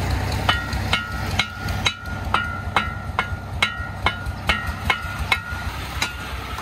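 Steel shovel struck again and again against the steel dump bed of a công nông truck: about a dozen ringing metal clangs, a little over two a second, stopping near the end.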